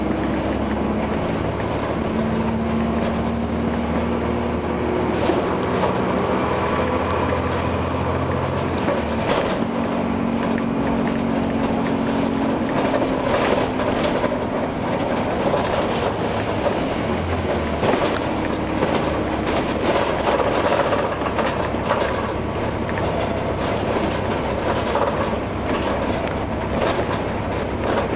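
Bus engine running as the bus drives along, its note changing about nine and thirteen seconds in, with the bodywork rattling and clattering over the road, more in the second half.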